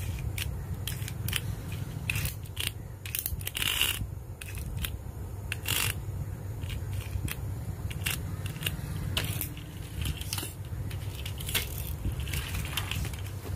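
Small hard-plastic toy vehicles clicking and rattling as they are handled, with crinkling plastic packaging, in irregular sharp clicks and crackles over a steady low hum.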